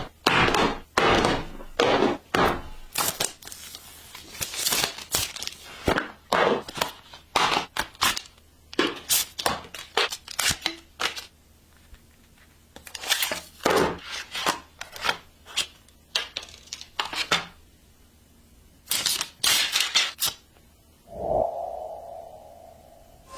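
Smartphone box and packaging handled and opened: a long series of short rustles, scrapes, tears and light knocks, coming in quick clusters with short pauses between.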